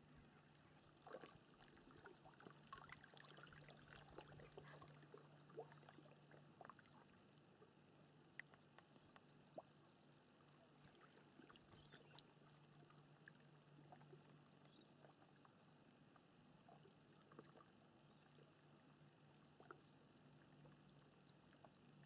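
Faint calm water: gentle lapping and trickling with many small drips and splashes, busiest in the first few seconds, over a low steady hum.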